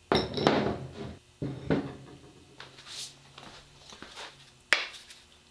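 Metal tools and engine parts clanking and clinking as the main bearing caps are worked off a Ford 351M engine block. There is a cluster of knocks at the start and a sharp clank near the end.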